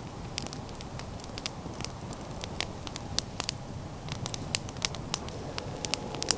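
Small twig campfire crackling: irregular sharp pops and snaps, a few louder than the rest, over the steady hiss of the flames.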